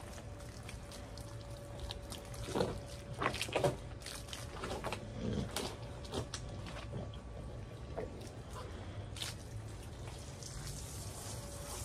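Water pouring and splashing while a dog is bathed. The splashes come irregularly, loudest about two and a half to four seconds in, over a steady low hum.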